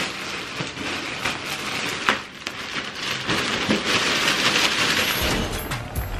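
Plastic mailer bag crinkling and rustling as it is torn open and handled, with a few sharp crackles. A low rumble comes in near the end.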